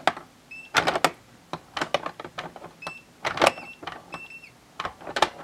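Castle Kingpin mini electronic pinball game in play: many sharp plastic clicks and knocks from the flipper buttons, flippers and steel marble, with several short high electronic beeps as the game keeps score, one about half a second in and three more in quick succession around the middle.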